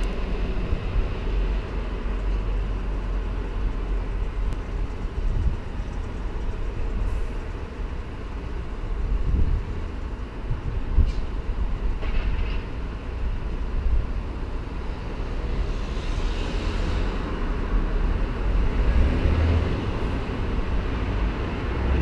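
Road traffic on a busy multi-lane road: a steady low rumble of passing cars and buses.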